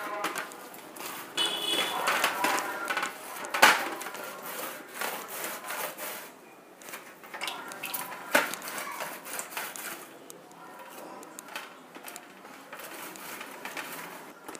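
Wet hands squeezing and dividing ragi dough on a stainless-steel plate: soft squelching and rubbing, with two sharp taps against the steel, about three and a half and eight seconds in.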